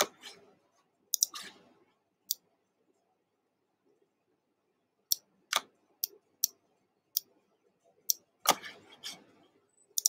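Scattered, sharp computer mouse clicks, a dozen or so at irregular intervals, with a heavier knock about eight and a half seconds in.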